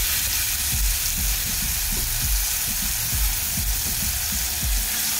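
Marinated salmon fillet sizzling steadily in hot oil in a skillet, just laid into the pan.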